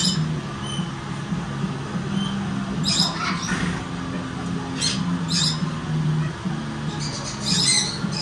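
Small caged animal giving short, high-pitched squeaks in quick pairs, about three seconds in, about five seconds in and again near the end, over a steady low hum.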